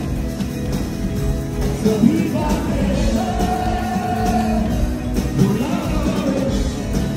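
Live pop-rock performance: a male singer holds long, wavering notes into a microphone over a band with electric guitars.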